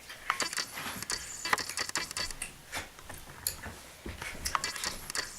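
Scattered faint clicks and rustles at irregular intervals, like small objects being handled.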